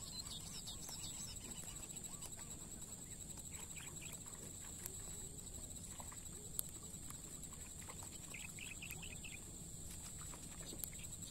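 Quiet outdoor ambience: faint, scattered bird chirps over a steady high-pitched whine and a low rumble, with two soft clicks in the middle.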